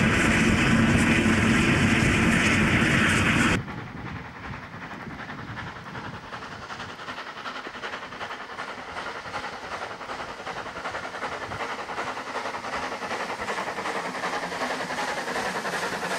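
Double-headed NSW standard goods 2-8-0 steam locomotives hauling a passenger train. A loud close pass cuts off suddenly a few seconds in, followed by the train running at a distance and growing slowly louder as it approaches.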